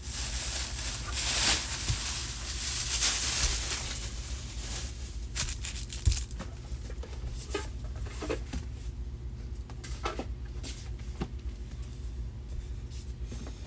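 Rustling and crinkling of handled objects for the first few seconds, then a scatter of light clicks and knocks as things are moved and set down.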